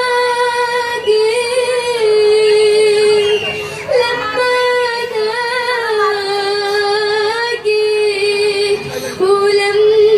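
A young girl singing solo and unaccompanied in Arabic maqam style: long held notes with small ornamental turns and slides, with brief breaths about four seconds in and near the end.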